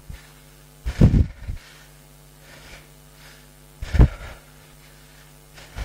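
Heavy breathing of a man exercising hard, his breaths puffing into a headset microphone: three forceful exhalations, about a second in, about four seconds in and at the end, over a steady hum.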